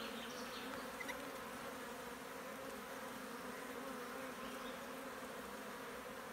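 Honeybees buzzing around an open hive and a comb frame crawling with bees: a steady, even hum. A light click about a second in.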